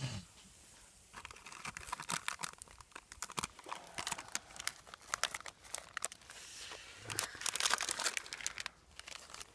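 Crinkling and rustling of a plastic biscuit wrapper being handled and torn open, loudest around seven to eight seconds in.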